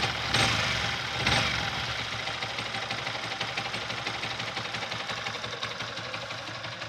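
Yamaha R15 V3's single-cylinder engine blipped twice in the first second and a half, then idling with a fast, even ticking rattle: the cylinder-head and clutch bell noise the owner is showing as a problem.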